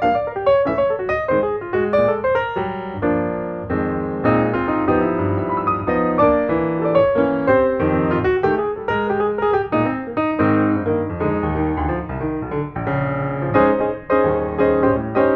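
Background piano music, many notes played in quick succession.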